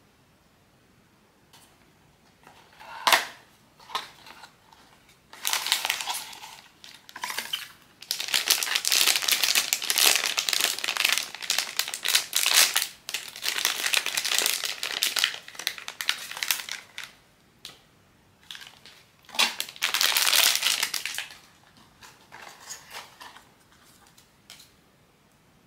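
Blind-box packaging being opened and handled by hand: bursts of crinkling and crumpling, with a couple of sharp clicks near the start and the longest run of crinkling in the middle.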